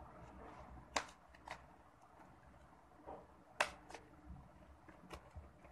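Hands picking at and handling a flat cardboard gift package: a few sharp clicks and taps, the loudest about a second in and again past three and a half seconds.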